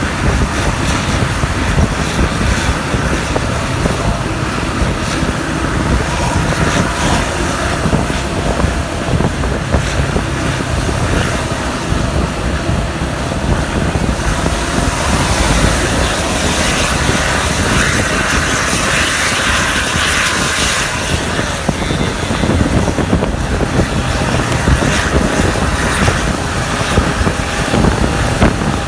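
Intercity coach's exhaust and engine running loud and steady as it drives, heard from a vehicle following close behind, mixed with road and wind noise.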